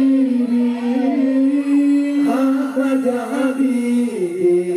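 Male voices singing sholawat, an Islamic devotional chant, through microphones and a PA. They hold one long note, and the pitch steps up to a new note near the end.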